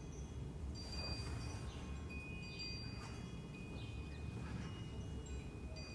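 Faint wind chimes ringing, several high clear notes sounding one after another and lingering, over a low steady rumble.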